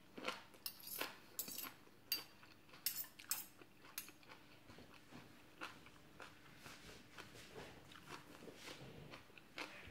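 Metal spoon and fork clinking and scraping against a glass plate, in quick clusters over the first four seconds and then more sparsely, with soft chewing between.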